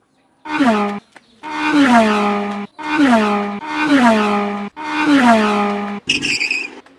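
A racing-car pass-by sound effect played five times in a row, each pass starting higher and dropping in pitch as the car goes by. A short, higher-pitched sound follows near the end.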